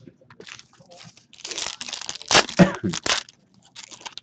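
A foil hockey card pack being torn open and crinkled in the hands. The crinkling starts about a second and a half in and is loudest around the middle, with more crinkling near the end.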